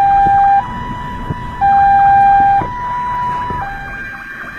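Vietnamese police siren in two-tone mode, stepping between a lower and a higher tone about once a second, with the lower tone louder. Steady road noise underneath.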